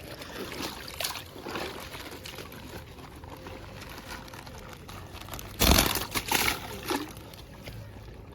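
Shallow muddy water splashing and trickling as people wade and handle nets and fish. There is a louder splash about five and a half seconds in, followed by two smaller ones.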